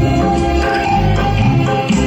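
Instrumental passage of a karaoke backing track for a Hindi film song, with a steady bass pulse and hand percussion.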